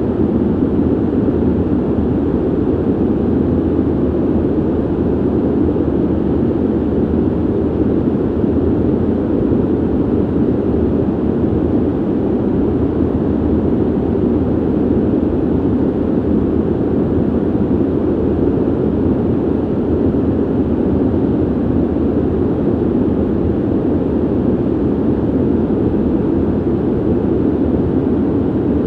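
Ventilation system running steadily: an even, unbroken rush of air, deep and muffled, with most of its weight in the low-mid range and little hiss on top.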